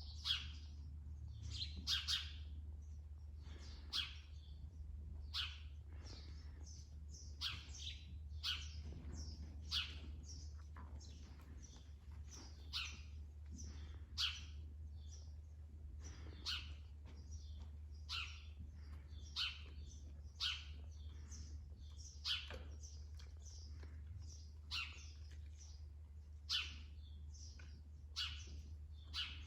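Small birds chirping: short, sharp, high chirps every second or two, over a steady low hum.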